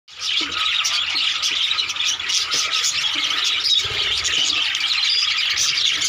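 A flock of budgerigars chattering all at once, a dense, unbroken mass of many overlapping high calls at a steady level.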